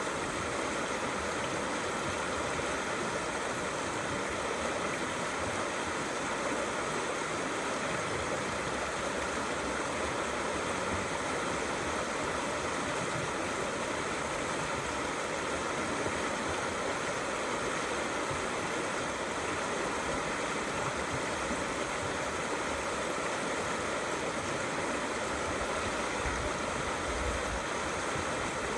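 Small river flowing gently, a steady even rush of running water.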